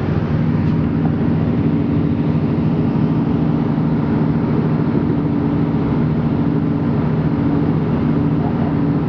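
Cabin noise of an Irish Rail 29000 class diesel multiple unit under way. The underfloor diesel engine gives a steady low drone with a pitched hum, mixed with the running noise of the train.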